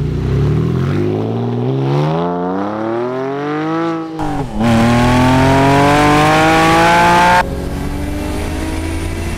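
Straight-piped Porsche 997 Carrera S flat-six, mufflers bypassed, accelerating hard away. The exhaust note rises through one gear, drops at an upshift about four seconds in, then rises again until it cuts off suddenly near the end.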